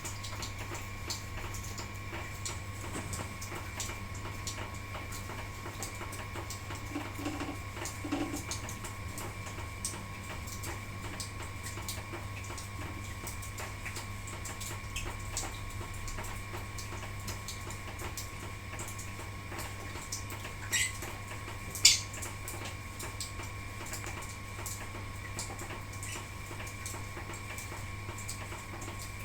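Lovebirds with light scattered ticking and tapping throughout, and two short, sharp high chirps near the end, the second the loudest. A steady hum runs underneath.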